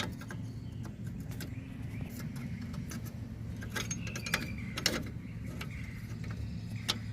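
Small metallic clinks and rattles of drum brake hardware (shoes, springs and a retaining plate) being handled and fitted by hand, with a few sharper clicks around the middle, over a steady low hum.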